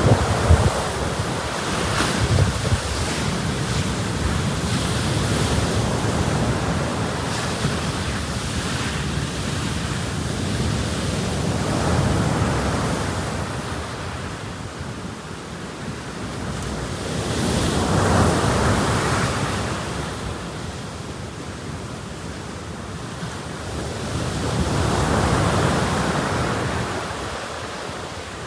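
Sea waves breaking and washing up on a beach in slow surges, swelling every six or seven seconds, with wind buffeting the microphone. A brief sharp crack about two seconds in.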